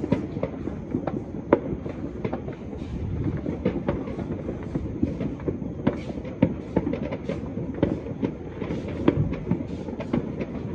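Fireworks and firecrackers going off all over a town at once, heard from afar: a dense, continuous crackle of overlapping pops with frequent sharper bangs.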